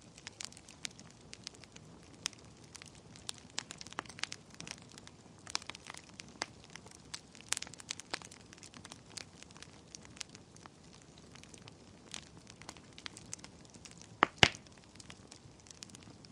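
Wood fire crackling in a fireplace: irregular sharp snaps and clicks over a low hiss, with a louder double pop about fourteen seconds in.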